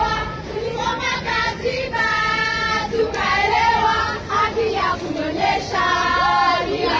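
A crowd of marchers singing a song together, several voices in unison with long held notes.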